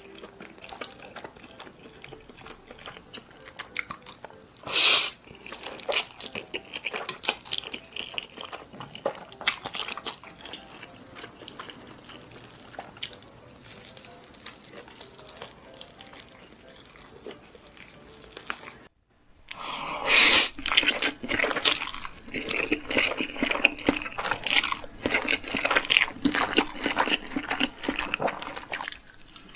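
Close-miked eating sounds: wet chewing, smacking and slurping of spicy cheese ramen noodles, with occasional crunches. About two-thirds through it cuts out for an instant and resumes louder.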